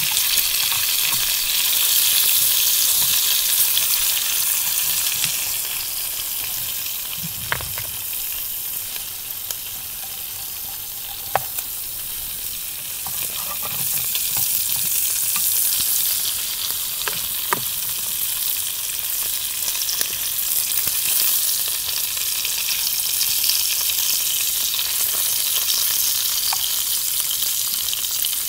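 Cauliflower mushroom sizzling steadily as it sautés in a small pan over a campfire. A few sharp clicks stand out, the loudest about 11 seconds in.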